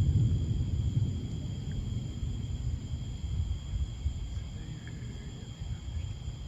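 Thunder rumbling low, loudest at the start and slowly dying away.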